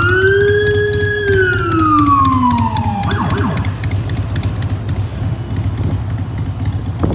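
Fire department vehicle's electronic siren sounding one wail that rises, holds and then falls over about three seconds, followed by a few quick short chirps. After that comes a steady low rumble of vehicle engines.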